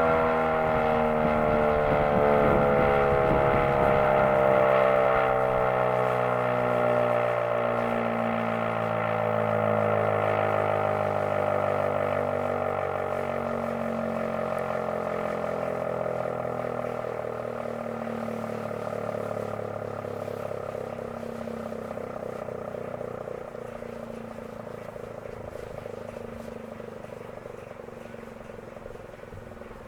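ACA P-15 outdoor warning siren winding down at the end of its attack signal: its tone slides slowly lower and fades steadily, swelling and ebbing in volume every couple of seconds.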